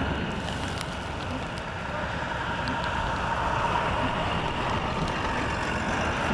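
Steady rush of blizzard wind mixed with vehicle traffic noise, engines and tyres on snowy road.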